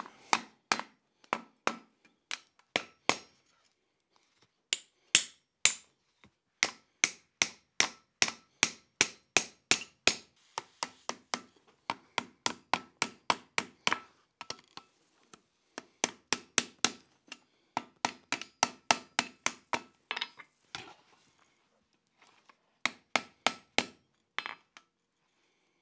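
Hand hammer striking the red-hot jaws of railroad-spike tongs on an anvil, in quick runs of light blows at about three a second with short pauses between runs. Each blow leaves a short metallic ring. The blows are reshaping the jaws to fit a railroad spike.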